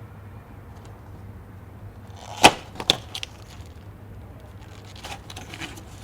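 A single sharp crack about two and a half seconds in, then a smaller click just after and a few faint clicks and crackles later on.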